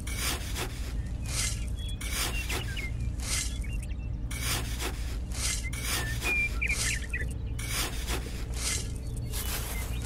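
A small hand trowel digging and scraping through sand in repeated scooping strokes, about one or two a second.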